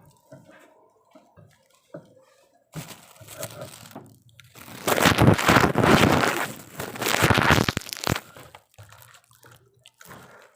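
Crunching and rustling close to the microphone, loudest for about three seconds in the middle, as a crispy burger sandwich is eaten.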